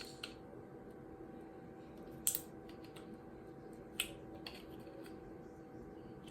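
Faint clicks and scrapes of small plastic parts as a glued-on googly eye is pried off a 3D-printed figure with a small tool, with two sharper clicks about two and four seconds in. A faint steady hum runs underneath.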